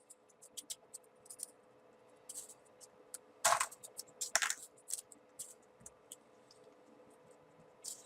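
Small folded-paper 3D origami pieces rustling and clicking as they are handled and pushed into place on the model: a run of short crisp clicks, with two louder paper scrapes about three and a half and four and a half seconds in.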